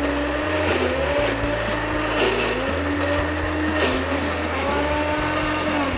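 Electric kitchen mixer grinder running, grinding soaked rice into a thick paste of jackfruit, jaggery and coconut with no water added. The motor's pitch wavers, dipping several times, and falls away near the end.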